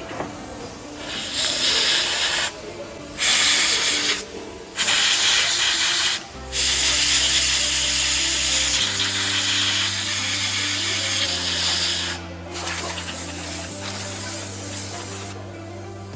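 Pressurised spray hissing in bursts: three short blasts, then two long ones of several seconds each. Background music with a bass line plays underneath.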